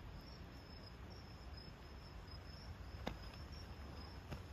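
Faint high-pitched insect trill, steady with brief breaks, over a low background hiss. Two soft clicks sound about three seconds in and just before the end.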